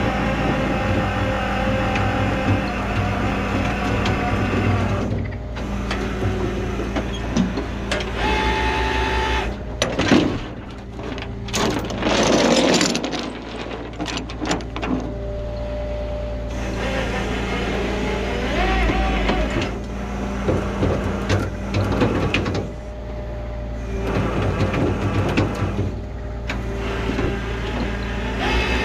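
Rollback tow truck running its hydraulics while the winch pulls a car up the bed: a steady engine hum, with brief whining tones that rise and hold as the control levers are worked. A burst of metal clatter from the cable and hook comes about twelve seconds in.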